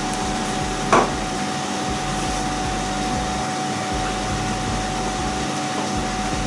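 Steady rushing noise of a running fan with a constant hum, and a single short knock about a second in.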